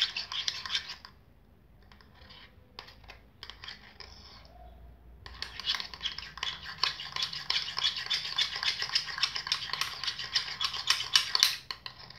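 Rapid scraping and clicking of a utensil stirring slime mixture in a bowl. It comes in two spells: one that stops about a second in, and a longer one from about five seconds in that cuts off suddenly near the end. A few light clicks fall in the pause between them.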